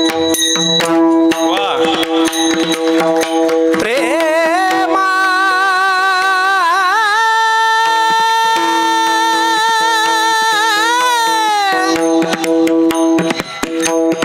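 Devotional abhang singing: a singer holds one long, high note with wavering ornaments for several seconds over a steady drone. Pakhawaj drum strokes play at the start and come back near the end.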